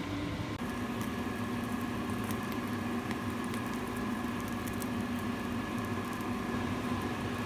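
Beaten egg sizzling in a hot frying pan as a rolled omelette cooks, with fine crackles over a steady hum; it starts about half a second in.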